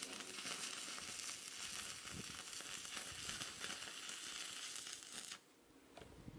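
Stick-welding arc crackling steadily as the electrode runs a short weld on a steel pipe joint; the arc stops about five seconds in.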